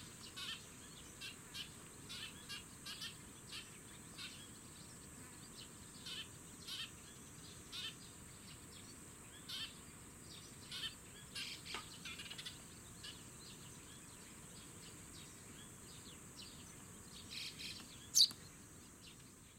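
Eurasian tree sparrows chirping: short, high chirps repeated about every half second, growing sparser after the middle, with one louder, sharp chirp near the end.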